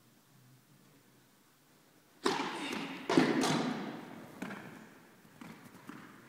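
Tennis ball struck hard by a racket about two seconds in, then a louder strike about a second later and further hits and bounces, each echoing through a large indoor tennis hall. Fainter knocks follow near the end.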